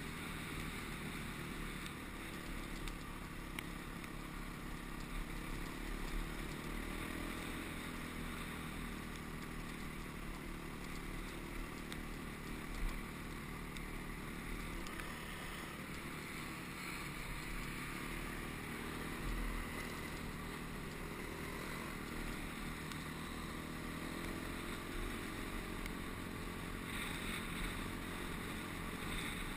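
Honda CRF250X dirt bike's single-cylinder four-stroke engine running under way, its note rising and falling a little with the throttle, under steady wind rush on a helmet-mounted microphone. One sharp knock about halfway through.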